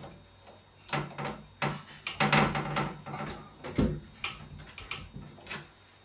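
Screwdriver driving a screw through the door closer's bracket into the screen door frame: an uneven run of knocks and scrapes, busiest about two to three seconds in, stopping shortly before the end.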